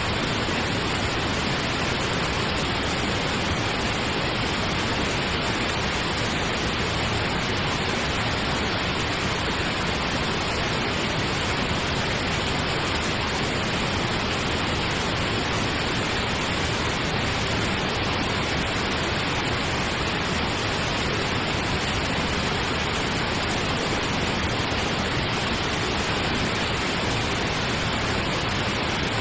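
Steady synthetic pink noise: an even, unchanging hiss with no rhythm or pitch.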